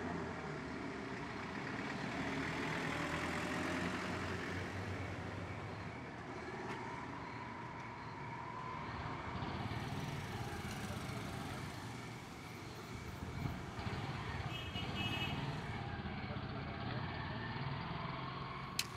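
Road traffic on a street at night: a steady rumble and hiss of passing vehicles that swells and fades. A short run of high beeps comes about three-quarters of the way through.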